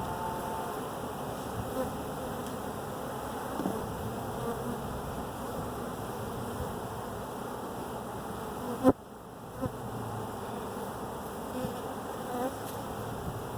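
A swarm of honeybees buzzing steadily around a hive box. A single sharp knock about two-thirds of the way through is the loudest moment.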